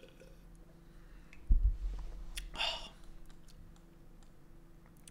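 A man drinking from a glass at a desk: a low thump about one and a half seconds in as the glass is set down, then a short breathy exhale about a second later.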